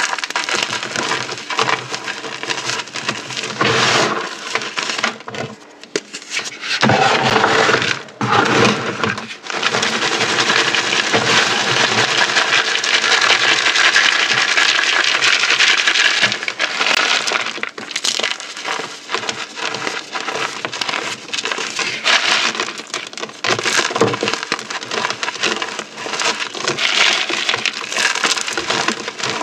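Dried orbeez hydrogel beads and chalk crunching and crackling as they are crushed, a dense patter of small cracks, heavier from about ten seconds in.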